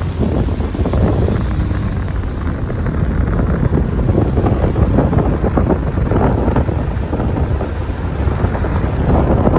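Wind buffeting the microphone of a moving vehicle, in irregular gusts over a steady low rumble of road and engine.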